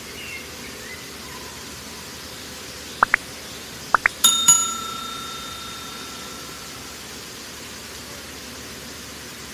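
Subscribe-button animation sound effect: two pairs of quick mouse clicks about three and four seconds in, then a bright notification bell dinging twice and ringing on for about two seconds, over a steady hiss.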